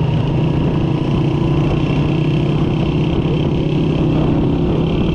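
Motorcycle engine running at a steady cruising speed, heard from the rider's seat as a steady low note with road and wind noise.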